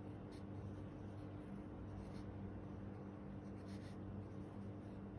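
Pencil writing on a paper workbook page: faint, short scratching strokes as letters of a word are written by hand, over a faint steady low hum.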